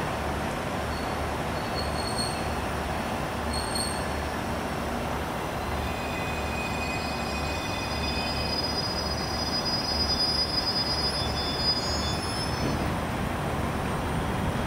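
JR Central 211 series electric multiple unit rolling into a station and braking to a stop, its running noise steady, with a high brake squeal from about six seconds in that peaks around ten to twelve seconds and dies away as the train halts.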